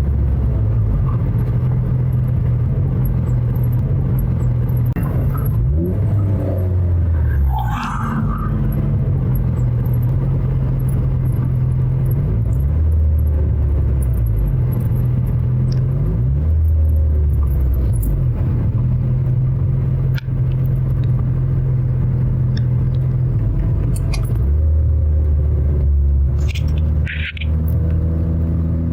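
Car engine and drivetrain droning from inside the cabin while driving. The engine hum steps up and down in pitch several times as the revs change, with the automatic transmission slipping and the car losing electrical power.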